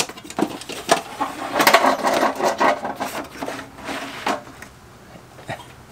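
Latches of an old Umco aluminum tackle box clicking open, then the lid and cantilevered metal trays being swung out, with metal clicks and a stretch of scraping and rattling. Another click comes past the middle before it goes quieter.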